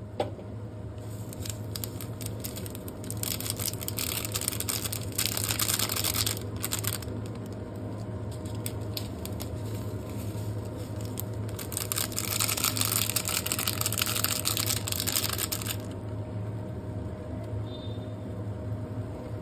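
A paper packet of sesame seeds and seaweed flakes shaken over noodles in a pan, in two spells of crinkling and pattering, over a steady low hum.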